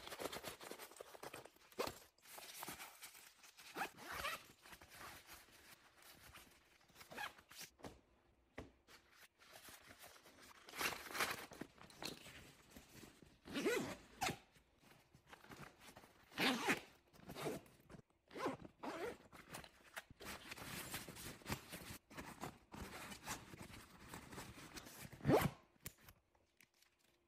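Zippers on a fabric garment duffel bag being pulled open and shut as it is packed: a string of short zips one after another, a few of them sliding up or down in pitch.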